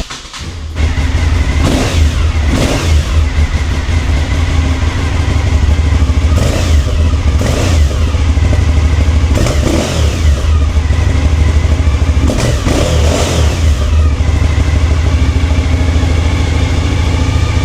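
Cagiva Raptor 1000's V-twin engine running with a steady low rumble, revved up and down about half a dozen times. It cuts off suddenly near the end.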